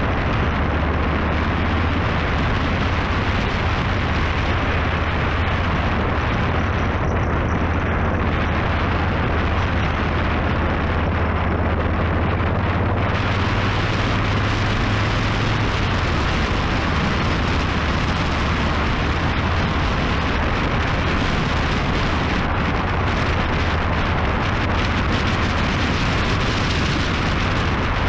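Wind rushing and buffeting over the microphone of a camera mounted on a moving motorcycle, over the steady low hum of the motorcycle's engine at cruising speed.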